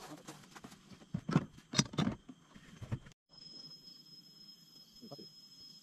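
Several loud knocks and rustles close to the microphone over about a second, starting about a second in. After a brief gap, a steady high-pitched insect chorus of cicadas or crickets in tropical forest.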